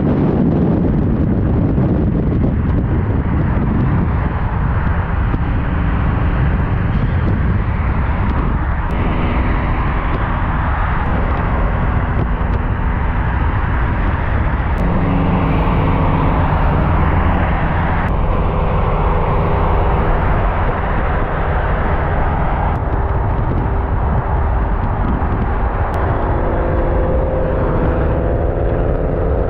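Subaru Impreza's flat-four engine and tyre noise while driving at speed: a steady rumble with the engine note holding, then rising slightly near the end.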